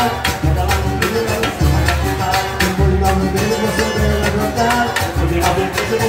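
Live samba-pagode group playing through PA speakers: cavaquinho strumming over pandeiro and hand drums, with a steady low drum beat.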